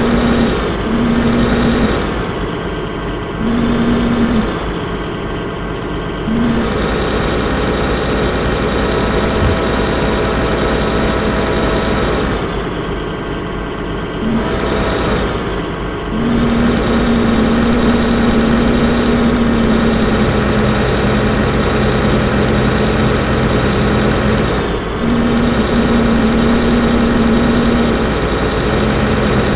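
Excavator engine running steadily, its sound dipping and picking up again three times: a few seconds in, in the middle, and once more briefly near the end.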